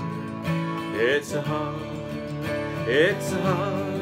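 Acoustic guitar playing a folk song: held chords, with a short melodic figure that comes back about every two seconds.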